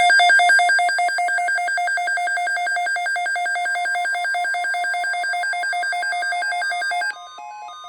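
Weather radio alert alarm: a loud, rapid electronic beeping of pulsed tones, with a steady tone joining about halfway through. Near the end the beeping drops in level and changes pattern. It is the alert that comes before a severe thunderstorm watch message.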